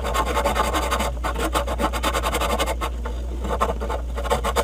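Wire brush scrubbing copper refrigerant tubing in rapid back-and-forth scraping strokes. The suction line is being cleaned to bare metal so a piercing valve's gasket can seal on it.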